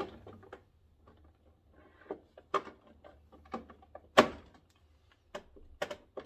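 Hard plastic clacks and knocks as drawer accessories are handled and set into a Milwaukee Packout tool-box drawer: about half a dozen separate knocks, the loudest about four seconds in.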